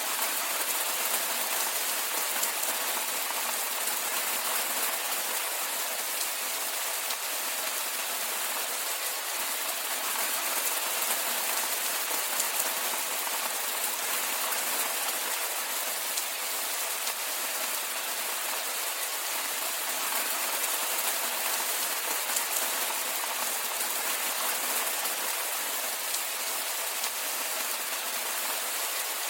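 Steady rainfall: an even hiss of rain with a fine patter of drops.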